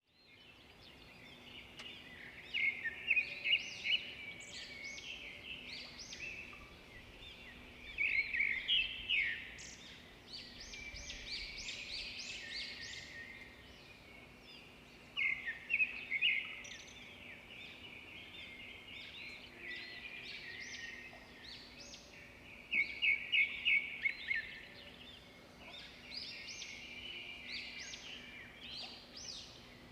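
Birds chirping and singing in clusters of quick high chirps and trills, recurring every few seconds, over a faint steady low hum.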